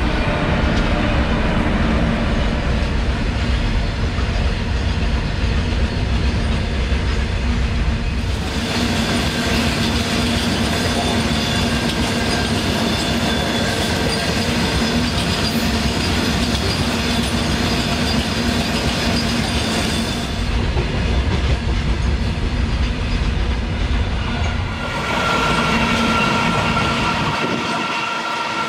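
A long freight train of loaded open wagons rolling past at speed: a steady heavy rumble with rhythmic wheel clatter over the rail joints.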